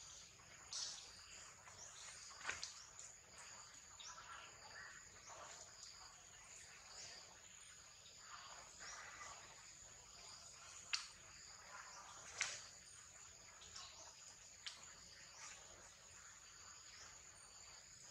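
Faint, steady high-pitched drone of insects in the forest, with a few soft clicks now and then.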